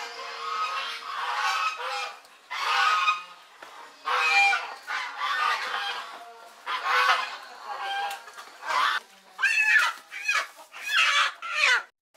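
Dwarf-leg chickens squawking in a string of loud, harsh calls that come quicker near the end, as a bird is grabbed by its feet.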